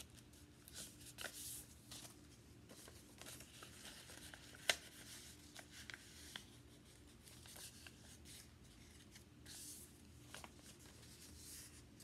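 Faint rustling and creasing of a sheet of paper being folded by hand, with one sharp click about halfway through.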